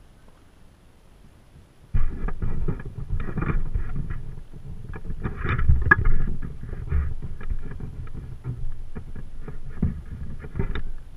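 Wind buffeting the camera's microphone: a loud, uneven low rumble with crackling that starts suddenly about two seconds in.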